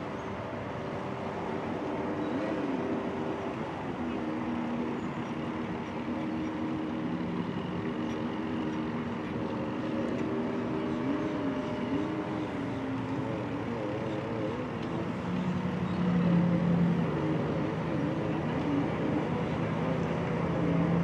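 Two-stroke stand-up jet ski engine running, its pitch wavering up and down as the throttle is worked. A steadier low engine note grows louder in the second half.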